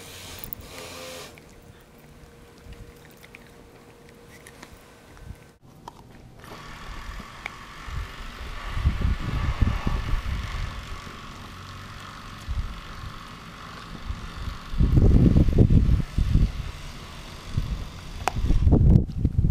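Siberian husky chewing and gnawing raw meat close to the microphone, in three loud, uneven spells: just before halfway, about three-quarters of the way in, and near the end.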